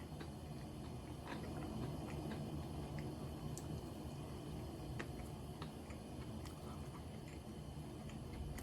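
A person chewing a mouthful of karaage fried chicken and rice close to the microphone, a steady soft mashing with scattered small wet clicks.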